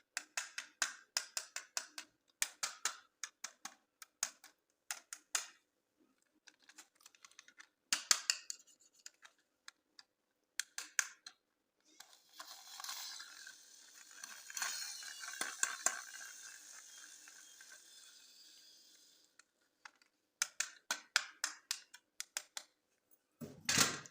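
Plastic toy packaging being handled and opened by hand, making quick runs of crackles and clicks. About halfway through there is a longer stretch of continuous rustling, and a louder crackle comes near the end.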